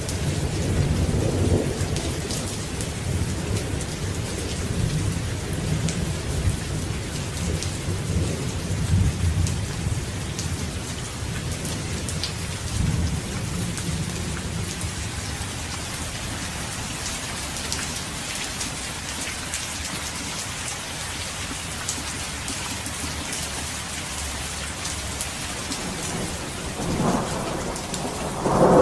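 A thunderstorm: steady heavy rain with scattered drop ticks. Thunder rumbles low through the first half and fades away, and a new, louder roll of thunder builds near the end.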